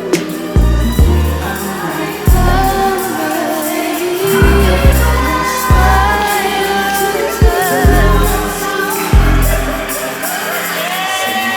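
Background pop music: deep, booming bass hits every second or so under a wavering melody line.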